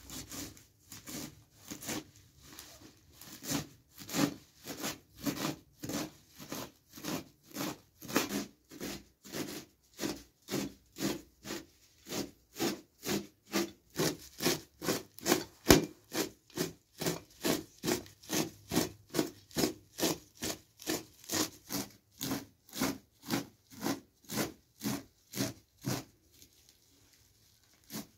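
Kitchen knife chopping a heap of fresh leafy herbs on a large metal tray: short, crisp strokes in a steady rhythm of about two to three a second, pausing briefly near the end.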